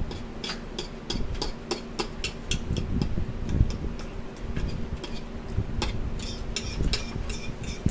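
Metal fork stirring tuna in a bowl, clicking and scraping against its sides in quick, irregular ticks, several a second.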